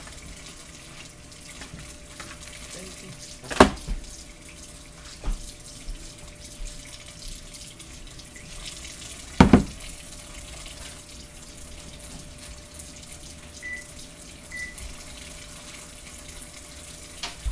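Kitchen tap running steadily into a sink, with two loud sharp knocks, about four seconds in and again about nine and a half seconds in, and a few light clicks of things handled on the counter.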